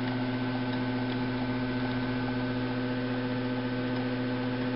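A steady hum made of several held tones over a faint hiss, unchanging throughout.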